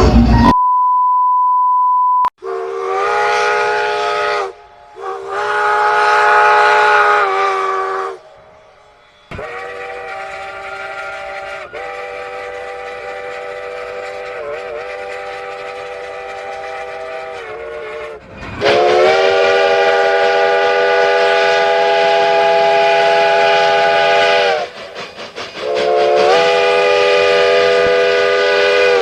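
Multi-chime steam train whistle sounding five long blasts, each a steady chord of several notes; the middle blast is quieter and lasts about nine seconds. Just before the first blast comes a short, steady single-pitch beep.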